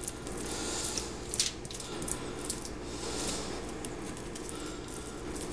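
Butter being spread by hand over a rack of ribs: soft squishing and smearing with scattered light clicks, over a low steady hum.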